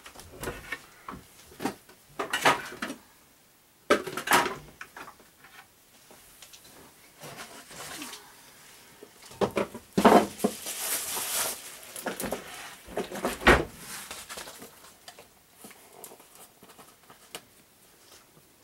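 Irregular knocks, clinks and rustles of kitchen things being handled, with a longer rustling stretch about ten seconds in and a sharp knock about thirteen seconds in.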